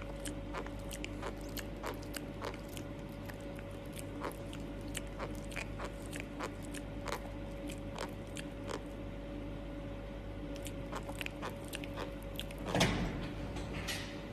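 A piglet chewing and smacking its mouth: a run of small irregular clicks, a few each second, over a steady faint hum, with a short louder noise near the end.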